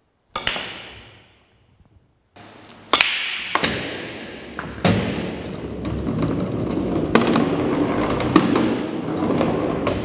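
Pool balls clicking together: a sharp knock with a fading tail about half a second in, a brief silence, then a string of separate clicks a second or more apart over a steady background noise.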